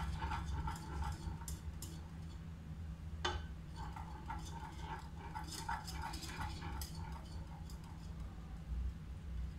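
Metal utensil clinking and scraping against a metal pot as kheer is stirred, with a sharp knock about three seconds in, over a steady low hum.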